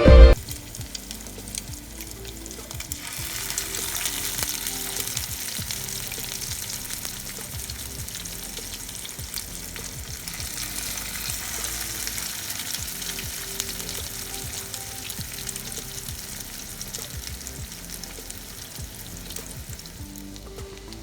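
Salmon patties frying in hot oil in a pan: a steady sizzle that grows louder about three seconds in.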